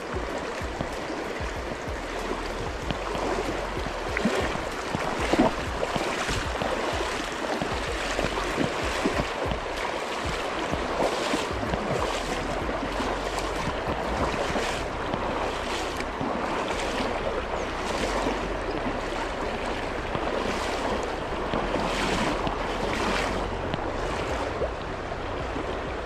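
Flowing river water rushing steadily, with a short surge of noise roughly once a second through the second half.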